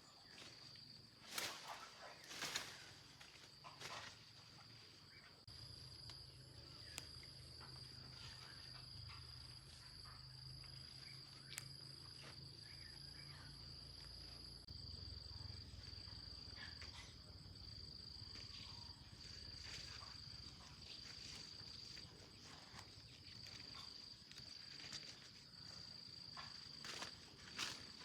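Faint steady insect chirring that breaks into even pulses about halfway through, with a few sharp knocks in the first few seconds and one near the end.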